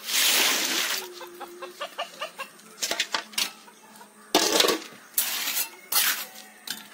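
Wet concrete tipped out of a metal pan, then scraped and spread with a steel trowel: a rush as it pours, knocks and scrapes, and a second rush about four and a half seconds in as the pan is emptied. A short steady animal call sounds about a second in.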